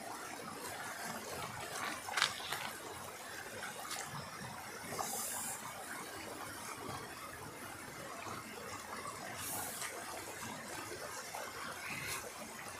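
Small stream rushing and splashing down a rock cascade, a steady wash of water. A sharp knock sounds about two seconds in.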